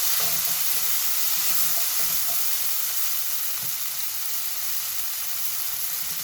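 Chopped tomatoes frying in hot oil with cumin and ginger in a tadka, a steady sizzling hiss.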